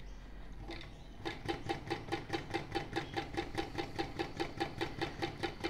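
ProSew 1933B industrial walking foot sewing machine stitching zipper tape to fabric at a slow, steady pace. An even run of mechanical ticks, about five a second, begins about a second in.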